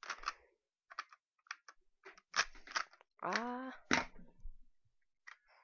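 Small hard parts of a disassembled pistol clicking and clattering in the hands as a part is pushed into place. A short vocal murmur sounds a little over three seconds in.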